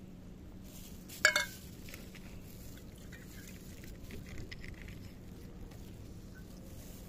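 Cats eating from a hard food bowl on concrete: one sharp, ringing clink of the bowl about a second in, then faint clicks of chewing and teeth on the bowl.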